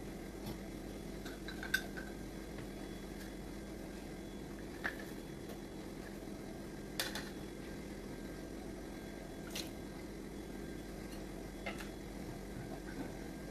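A few light, sharp clinks of a plate against a steel cooking pot as chopped vegetables are tipped in, spaced a couple of seconds apart, over a steady low hum.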